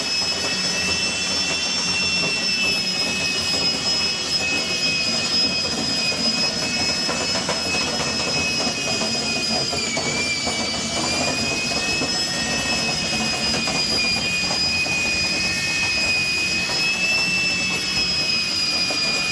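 Electric drill spinning a dryer vent cleaning brush on flexible rods up the vent duct, running steadily with a high whine. Its pitch dips briefly about halfway through, then recovers.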